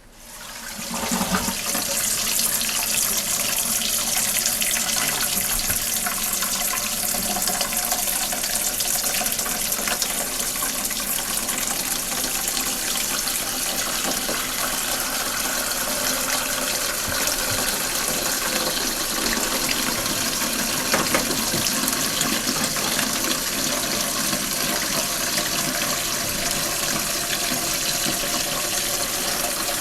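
Water running steadily into an INAX DT-4573 toilet tank as it fills. The rush starts within the first second and a half and keeps an even level.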